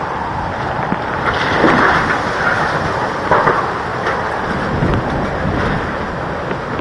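Tropical-storm wind and driving rain, a loud steady rush buffeting the microphone, with stronger gusts about a second and a half in and again near the middle.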